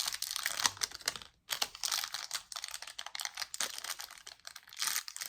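Thin plastic packaging crinkling and crackling as it is handled, a dense run of small clicks with a brief pause about one and a half seconds in.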